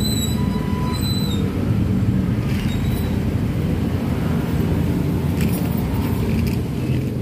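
Small motorcycle engine running steadily, a continuous low rumble, with a few short high-pitched tones in the first second or so and some faint clicks.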